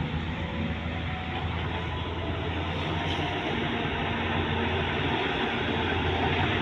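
Volvo EC210B excavator's diesel engine running steadily under work, a low, even rumble.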